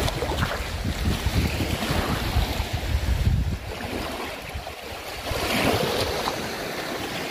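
Sea waves washing in, with wind rumbling on the microphone through the first half and easing after.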